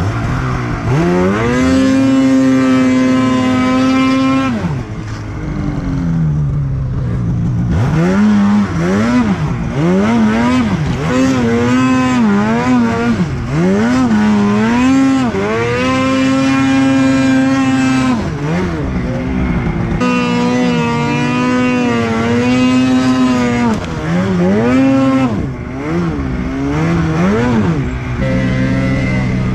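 Snowmobile engine revving up and down as the sled is ridden through deep snow: the pitch climbs, holds high for a second or two, falls back, and climbs again many times over.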